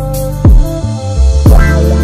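Background electronic music: sustained notes over a bass line, with two deep bass drum hits that drop in pitch, about half a second in and again near the end.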